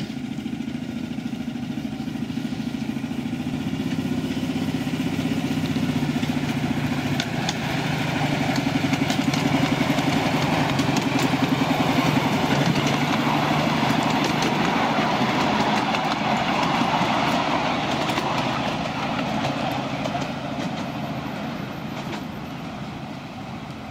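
Miniature railway diesel-outline locomotive's engine running as it hauls its train past. It grows louder to a peak about halfway through, then fades as the train pulls away, with faint clicks from the wheels on the rails.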